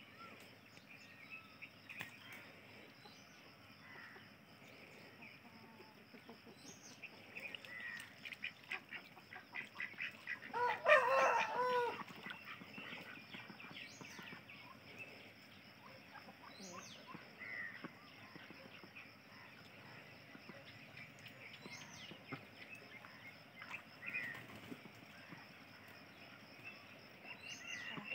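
White domestic ducks flapping their wings in a rapid flurry that builds for a few seconds, peaking about eleven seconds in with a loud call. A steady high whine and a few short chirps sound throughout.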